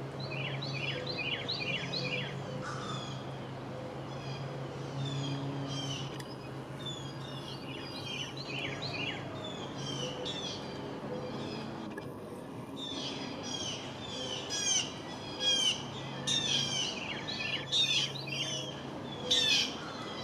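Small birds chirping in quick repeated series of short, falling chirps, louder and busier in the last several seconds, over a low steady hum.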